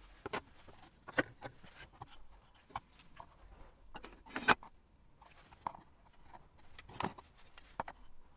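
Handling noises of plywood jig parts and a steel square on a wooden workbench: a scattered series of light knocks and clacks as the pieces are set down and shifted into place, with the loudest knock about four and a half seconds in.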